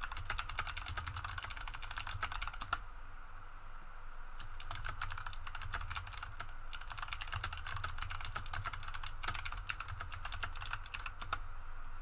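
Typing on a mechanical keyboard fitted with Kailh Box Navy clicky switches, a rapid run of sharp clicks. The typing stops for about a second and a half a few seconds in, then resumes with a few brief breaks.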